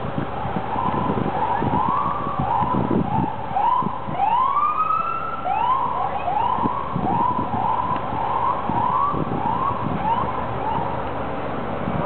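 Emergency vehicle siren in quick rising-and-falling yelps, about two a second, with one longer sweep midway. The yelps start about a second in and stop near the end, over steady low street noise.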